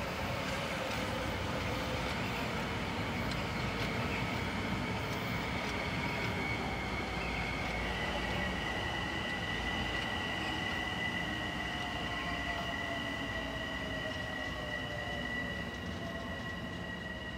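Metro-North commuter train rolling past on the track: a steady rumble of wheels on rail, with high, steady whining tones that shift in pitch about halfway through. It eases off slightly near the end as the last car passes.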